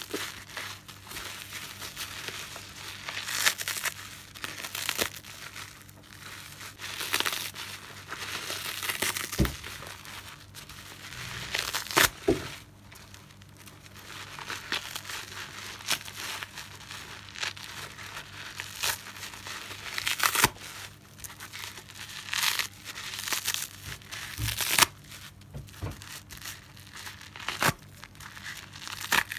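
Soapy car sponge squeezed and torn apart by hand: an irregular wet rustle that swells and fades as it is kneaded, with a few sharp snaps as pieces rip off.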